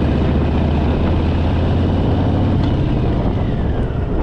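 Harley-Davidson Fat Boy's air-cooled V-twin running as the motorcycle cruises, with a steady low engine note. The note eases off about two seconds in.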